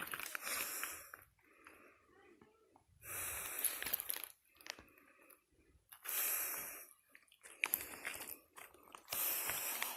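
A person breathing hard while climbing uphill, with a loud breath about every three seconds and faint scuffs in between.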